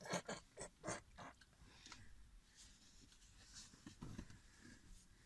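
Quiet chewing and munching of pastries, with a cluster of short crunchy clicks in the first second and faint scattered mouth sounds after.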